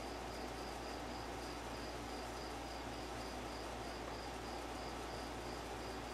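A high chirp repeating evenly, about three times a second, over a steady low hum and background noise.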